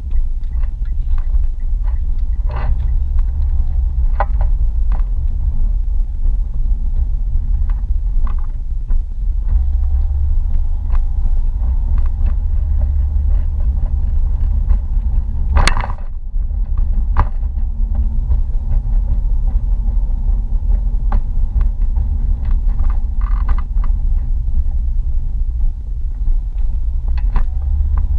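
Steady low rumble of a car driving slowly, heard from inside the cabin, with scattered small clicks and knocks. A single sharp knock stands out about halfway through.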